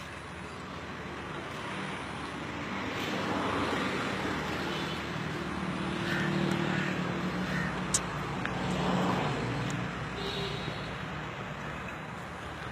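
Motor vehicle engine running with traffic noise, swelling louder twice in the middle, with one sharp click about eight seconds in.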